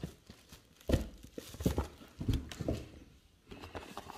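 A flat cardboard package handled on a desk: a series of dull knocks and thumps as it is picked up and turned, the loudest about a second in.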